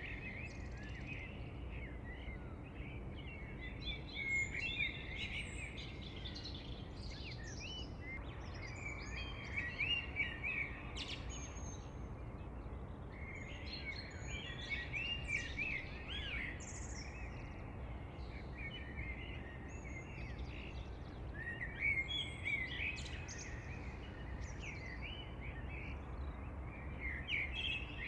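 Several birds chirping and singing in overlapping bursts of short, high notes and trills, over a steady low background rumble.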